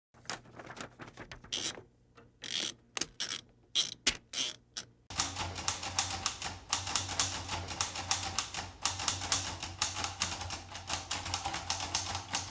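Typewriter keys clacking in a quick, irregular run of sharp strikes from about five seconds in, over a steady low hum. Before that come a few scattered short bursts.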